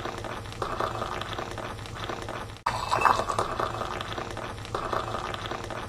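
Tea being poured into a cup: a steady trickling, splashing stream of liquid. It cuts out abruptly a little past halfway and picks up again at once, slightly louder, as at an edit.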